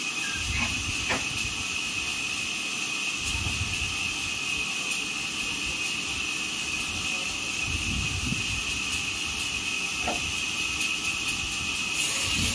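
Sawmill machinery running with a steady hiss and a thin high whine, while a few dull knocks come from a wooden slab being lifted and shifted on the log carriage.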